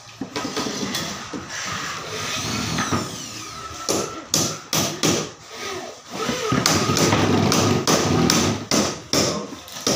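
Wooden boards knocking and clattering as they are handled and laid on a wooden saw table: a string of irregular taps and thuds, busiest in the second half.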